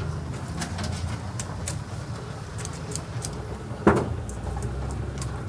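Noodle cooking at a steel boiling pot: small metal clinks of wire strainer baskets and chopsticks over a steady low hum, with one loud metal clank about four seconds in.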